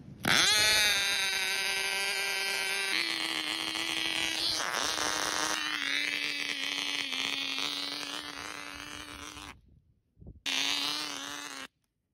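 Cox .049 two-stroke glow model engine with a propeller, running flat out with a high-pitched drone. It catches with a quick rise in pitch, then settles a little lower in a couple of steps. It fades out about nine and a half seconds in and is heard again for about a second near the end.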